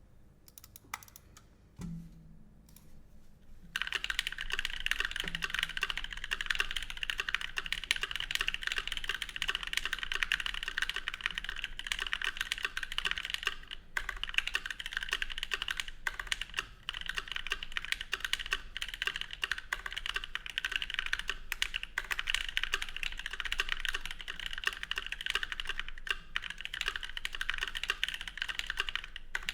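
Continuous fast typing on a Think6.5 custom mechanical keyboard (polycarbonate top, aluminium bottom) with lubed Novelkey Cream linear switches and GMK keycaps. There is a single soft knock near two seconds, then a dense run of keystrokes starts about four seconds in.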